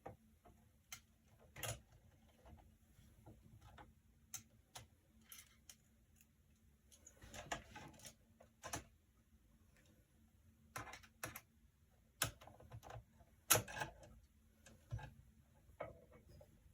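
Irregular light clicks and taps of small computer parts being handled, with a couple of short rustles; the sharpest tap comes about two-thirds of the way in.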